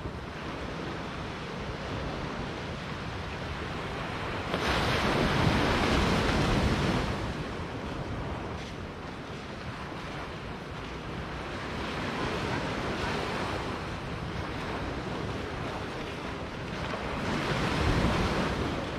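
Small sea waves breaking and washing up a sandy beach over a steady surf hiss. Two louder surges come through, one about four and a half seconds in lasting a couple of seconds, and another near the end.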